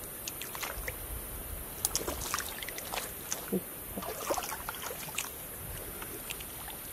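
Water in a shallow muddy stream, with light irregular splashes and small ticks over a steady high hiss.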